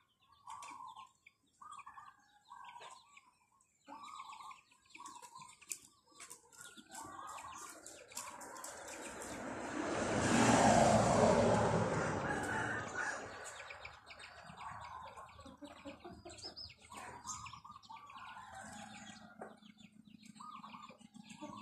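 Chickens clucking in short repeated calls, with small birds chirping throughout. Around the middle, a louder sound builds for a few seconds and fades away again.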